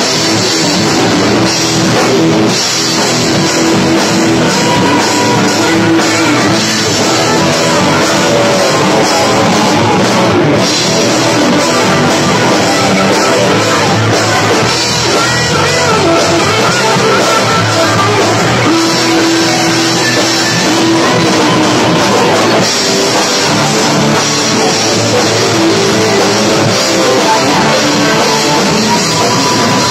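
Rock band playing live and loud, with drum kit and electric guitars.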